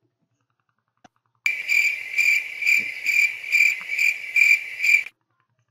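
Cricket chirping, a high-pitched pulsing trill repeating about twice a second, with a comic 'crickets' effect's abrupt start about a second and a half in and an abrupt cut-off about a second before the end.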